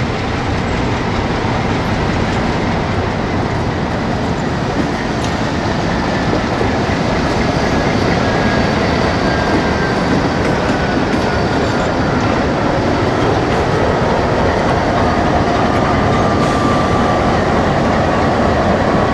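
Diesel-hauled freight train passing close by: locomotive engines running and wheels rolling over the rails with a clickety-clack, steady and loud throughout. A faint high whine slowly falls in pitch over the second half.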